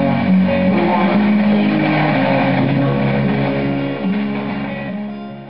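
Music from a BBC Radio Ulster broadcast received on medium wave and played through a 1942 Concerton V 443 valve radio, dull-sounding with the treble cut off as AM reception is. It fades away near the end.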